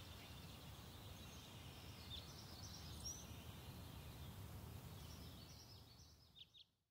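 Near silence: faint background noise with a few faint, short, high chirps, fading out to silence near the end.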